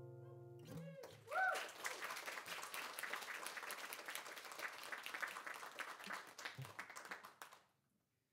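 The last strummed acoustic guitar chord rings out and stops, then a small audience applauds for about six seconds. A short whoop comes about a second in.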